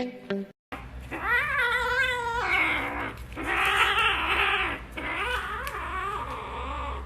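A cat yowling in long, wavering, drawn-out calls, with a harsher, noisier stretch in the middle.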